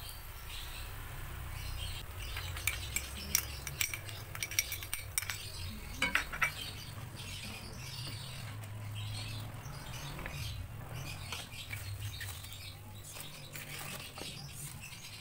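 Kitchen utensils clinking and knocking against a wok of boiling broth while it is stirred with a wooden spatula. The clatter comes as a quick run of clicks and knocks in the first half, over a steady low rumble.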